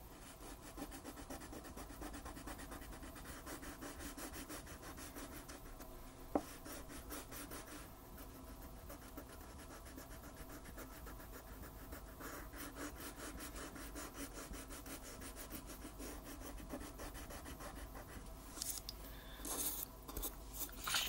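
Wax crayon colouring on paper: quick back-and-forth strokes making a steady scratchy rubbing, with a single sharp click about six seconds in and a few louder rustles near the end.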